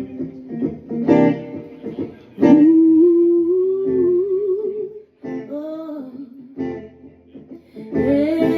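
Guitar playing with a voice singing along; about two and a half seconds in the voice holds one long note that wavers at its end, then sings shorter phrases.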